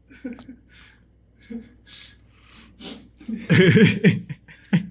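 Quiet snickering and breathy voice sounds, then a louder burst of laughter about three and a half seconds in.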